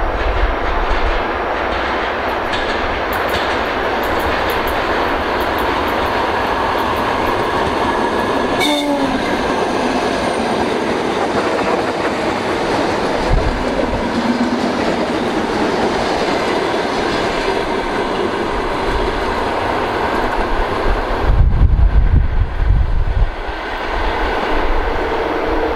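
ER9M electric multiple unit passing close by: a steady loud rumble of wheels on the rails and running gear. About nine seconds in there is a short horn toot. From about 21 seconds in, heavy low buffeting takes over as the high sounds drop away.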